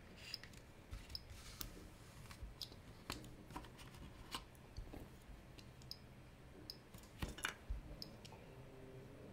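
Faint clicks and light taps from handling a tiny ladies' watch movement in its small plastic shipping container, with a slightly louder cluster of clicks about seven seconds in.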